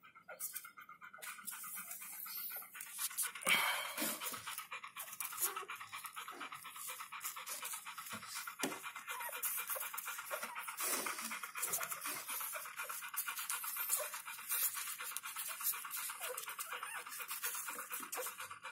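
Mother dog of a newborn litter panting rapidly and steadily through an open mouth, starting about a second in.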